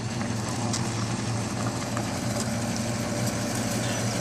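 Tow truck's engine running steadily at idle, an even low hum with no change in speed.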